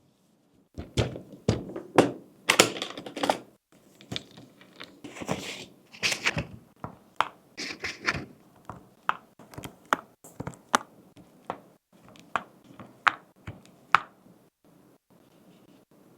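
Titanium alloy keycaps and keyboard parts of an ROG Azoth Extreme mechanical keyboard clicking and clacking as they are handled and pressed. The clicks come at an irregular pace, with some scraping and rattling in the first few seconds.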